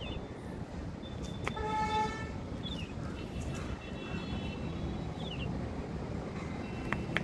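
Steady low noise of road traffic, with a vehicle horn honking once for under a second about a second and a half in.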